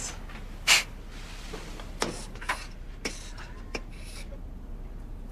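Chalk tapping and scratching on a blackboard: one loud sharp tap about a second in, then a few lighter taps and short scrapes about half a second to a second apart, over quiet room tone.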